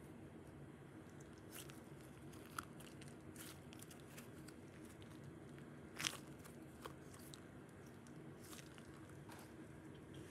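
Faint handling sounds of small fidget toys being picked over: scattered soft clicks and crinkles over a low room hum, with one sharper click about six seconds in.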